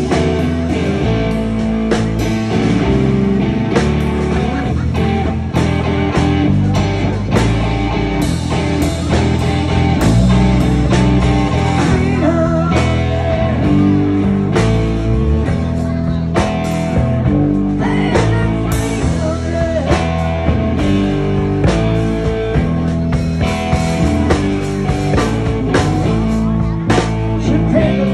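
Live rock band playing: electric guitar over drums and bass.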